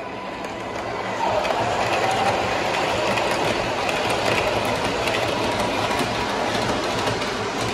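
O gauge MTH model R188 subway train rolling past on three-rail track around a curve and over a switch, wheels clattering on the rail joints. It gets louder about a second in as the cars come alongside.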